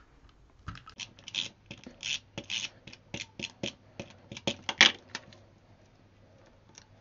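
Adhesive tape runner drawn over the back of a small paper piece: a run of short, irregular clicks and scratches lasting about four seconds, then it stops.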